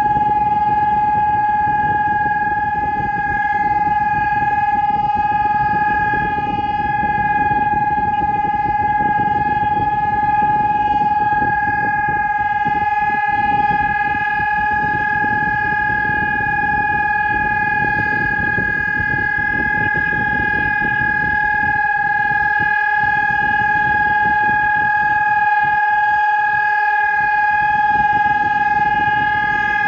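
Pavian electronic civil-defence siren sounding one steady, unwavering tone with overtones: the continuous test signal of a public siren test.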